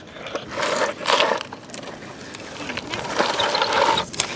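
Plastic toy construction vehicles scraping and crunching through dirt and sand, in irregular bursts.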